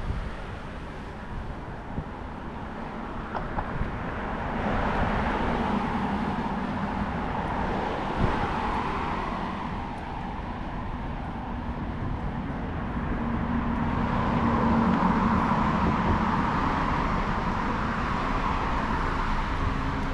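City street traffic: cars passing, their noise swelling up about four seconds in and again around fourteen seconds in.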